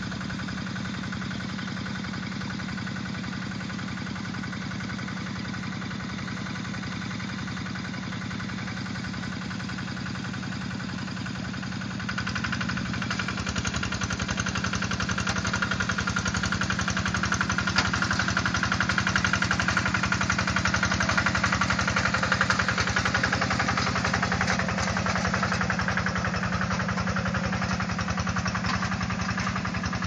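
Two-wheel hand tractor's engine running steadily at idle. About twelve seconds in it gets suddenly louder and stays up as the tractor moves off, plowing under load.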